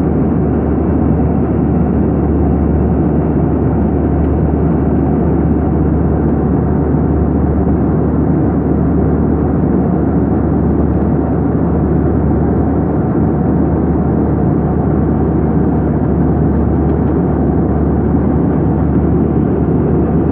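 Airbus A320-212 jet engine and airflow noise: a steady, loud low rumble and rush with no change in pitch.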